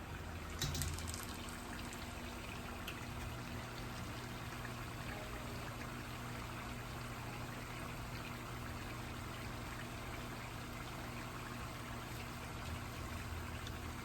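Turon, plantain and jackfruit rolls in spring-roll wrappers, frying in hot oil with a steady sizzle. A brief clatter comes about a second in.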